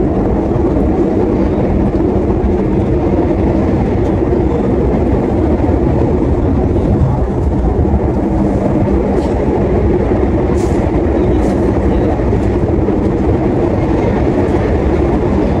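Inside a moving passenger train's executive-class coach: a steady low rumble of the carriage running on the rails, with a constant hum. A few faint clicks come through around the middle.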